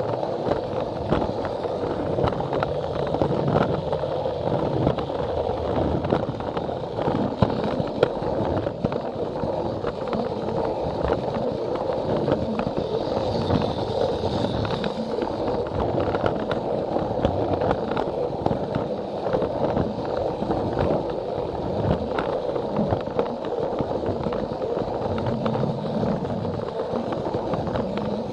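Plarail battery-powered toy train running along plastic track, its small electric motor and gears running steadily with frequent clicks as the wheels pass over the track joints.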